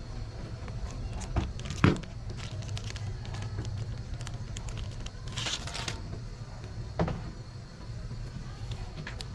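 Scattered small clicks and taps over a steady low rumble. There is a sharper knock about two seconds in, another near seven seconds, and a short scraping rustle a little past the middle.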